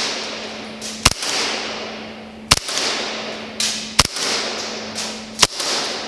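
Gas blowback airsoft pistol firing single shots: four sharp cracks about a second and a half apart, each followed by a fading hiss, over a low steady hum.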